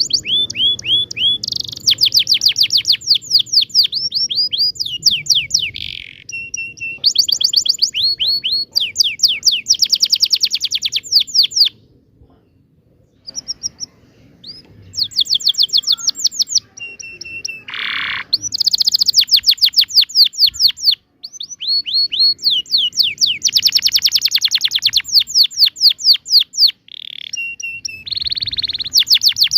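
Domestic canary singing a long song of fast rolling trills, runs of rapidly repeated high notes broken by short held whistles, with a brief pause about twelve seconds in.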